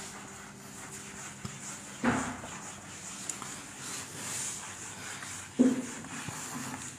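A cloth wiping a whiteboard clean: a soft, steady rubbing hiss, with two brief louder sounds, one about two seconds in and one near six seconds.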